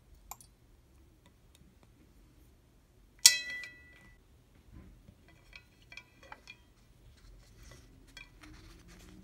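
Fisher Space Pen Cap-O-Matic clinking against a white ceramic dish full of water: one sharp ringing clink about three seconds in, then a few softer clinks a couple of seconds later.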